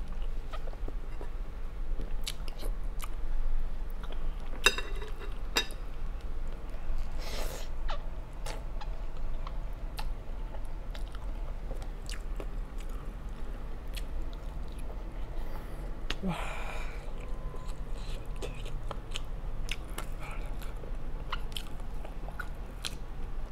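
Close-miked chewing of spicy instant noodles: wet mouth sounds with many small sharp clicks and smacks, a cluster of stronger ones about five seconds in, and two longer breathy noises, about a third of the way through and again past the middle.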